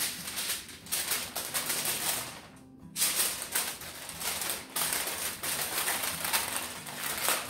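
Aluminium foil crinkling and crackling as it is folded and crimped shut around a foil-packet dinner, with a short lull about two and a half seconds in.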